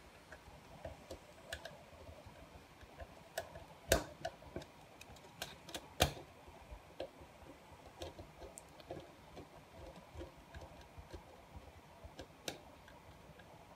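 Phillips screwdriver turning the screws of the SD card compartment cover back into a turret dome security camera: faint, irregular small clicks and ticks, with two sharper clicks about four and six seconds in.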